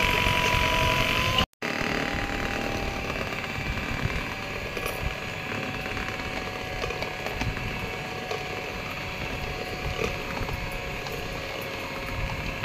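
Philips electric hand mixer running, its beaters whisking a batter in a plastic bowl with a steady motor whine. The sound cuts out for an instant about a second and a half in, then the whine goes on at a lower pitch.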